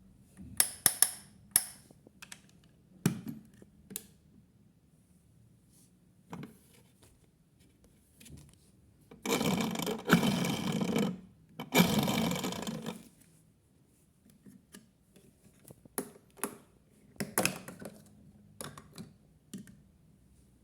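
Toy washing machine being handled: scattered plastic clicks and knocks, with two noisy stretches of a second or two near the middle.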